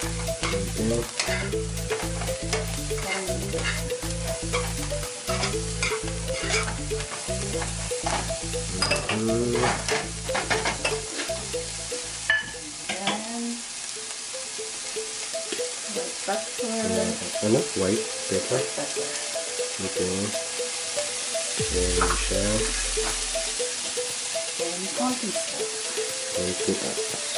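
Sliced leeks sizzling as they sauté in a nonstick frying pan, with a spoon scraping and clicking against the pan as they are stirred. A low hum underneath stops about halfway through.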